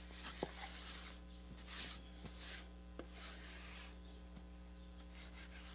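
A steel trowel scraping across a wet mortar bed in about four short strokes, with a couple of light knocks, as the excess mortar is trimmed away and the bed levelled out.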